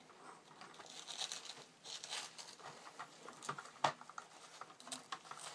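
Tissue paper and masking tape crinkling and tearing as they are peeled off a painted plastic scale model, with irregular small crackles and one sharp click about four seconds in.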